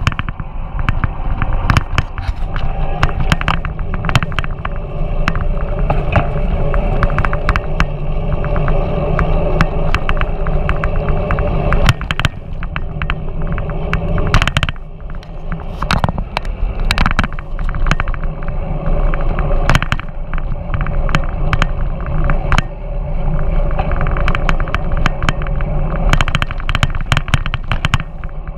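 Riding an electric mountain bike along a paved street, heard from a bike-mounted camera: steady wind and road rumble with frequent sharp knocks and rattles as the bike goes over bumps.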